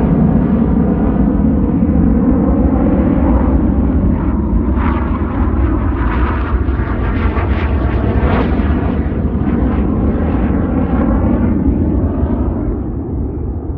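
BAE Hawk jet trainers flying past with their single-turbofan engines running, a loud, steady jet rush with a phasing, swirling quality that eases off near the end.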